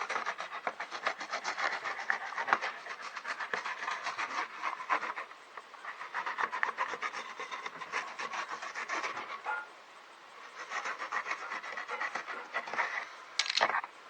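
Rapid back-and-forth rasping strokes of a hand tool on a board while a groove is worked into it, in three spells with short pauses between.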